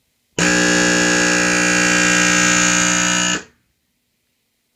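Digital Designs Z95 12-inch subwoofer, its dual 1-ohm voice coils wired in series to 2 ohms, driven straight from a wall outlet: a pretty loud mains hum-buzz rich in overtones that switches on abruptly and cuts off abruptly about three seconds later. The coil was already burnt before this test.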